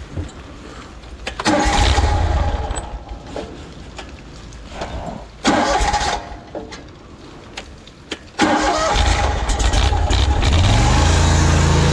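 The engine of a trailer-mounted high-pressure drain jetter being started: two tries that sputter and die, then on a third it catches about eight seconds in, revs up and settles into steady running.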